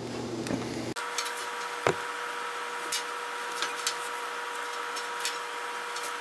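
Scattered light clicks and scrapes of a pocket knife and hands stripping the outer insulation from a welder's black power cord, with the sharpest click about two seconds in, over a steady hum.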